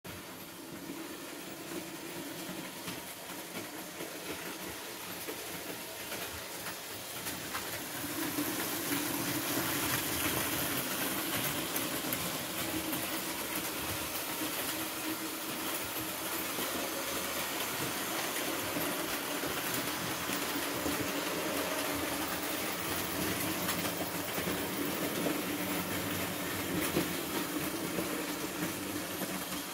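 Model train running on its track: a steady rolling rattle and motor hum that grows louder about eight seconds in and then holds.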